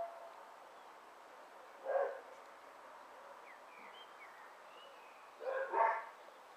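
A dog barking: one bark about two seconds in, then two more in quick succession near the end.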